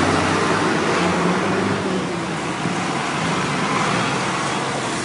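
Tractor engines running, a steady low drone over a wide rushing noise.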